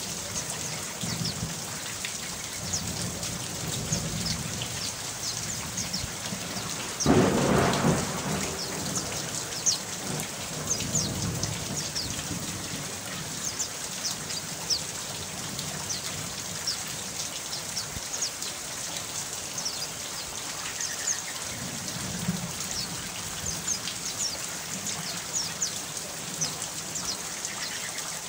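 Steady rain falling, with a sudden rumble of thunder about seven seconds in.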